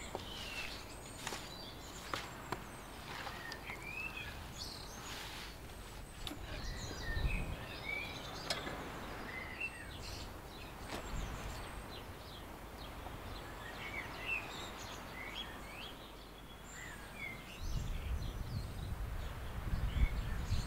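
Small birds chirping and singing, many short rising and falling calls, over a steady outdoor hush. There are a few sharp clicks and a low rumble about 7 seconds in and again near the end, the loudest moment.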